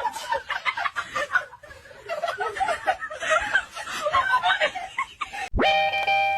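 A person laughing and chuckling in short bursts, then a sudden cut about five and a half seconds in to plucked-string music.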